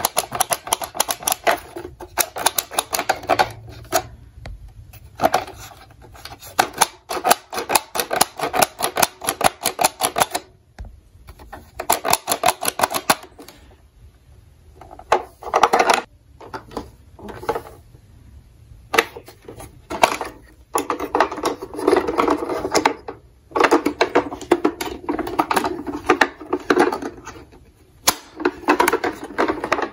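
Quick runs of sharp clicks and taps from fingers handling the hard plastic body of a Tonka toy ambulance, with short pauses between runs.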